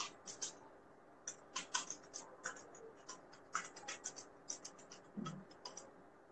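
Faint, irregular clicks and ticks, several a second, stopping about six seconds in.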